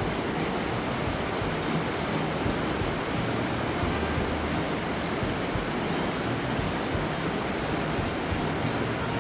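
Steady, unbroken rush of water from a tall waterfall, the roughly 110-metre Foroglio falls, a dense even noise with no changes.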